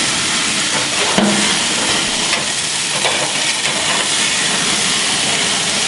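Hamburger patties sizzling on a hot grill over open flames: a steady hiss, with one faint click about a second in.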